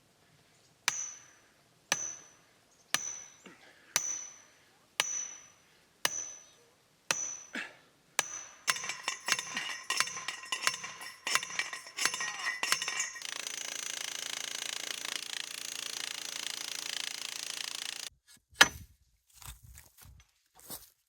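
Steel sand point well pipe being driven into the ground by hand: metal-on-metal blows about once a second, each with a bright ringing tone. A faster run of clanks follows, then a steady mechanical noise for about five seconds, and one loud bang near the end.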